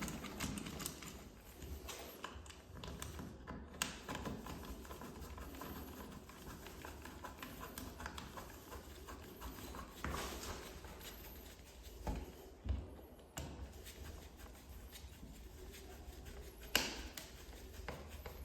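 Quiet hand-working sounds of a double wall socket being fitted: faint rustling and handling, with a few scattered clicks and knocks of tools and plastic.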